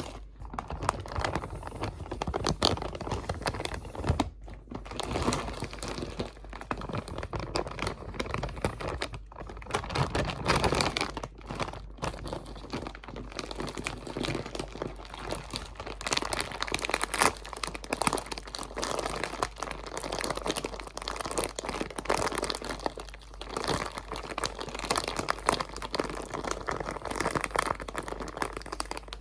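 Crinkly material being scrunched and handled very close to the microphone: dense, irregular crackling with a few short pauses.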